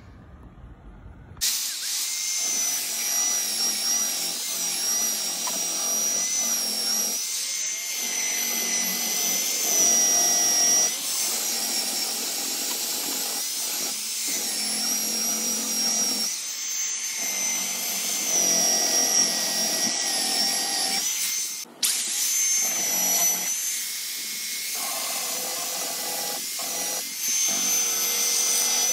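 An electric sander starts about a second and a half in and runs steadily with a high whine, its noise rising and falling as it is worked against the edges of a glued maple-and-mahogany guitar body to sand the overhanging wood flush. It cuts out for a moment about three quarters of the way through.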